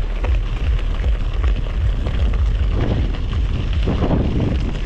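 Wind buffeting the microphone of a camera riding along on a mountain bike: a heavy, fluttering low rumble.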